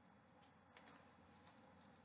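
Near silence: room tone with a couple of faint ticks a little under a second in.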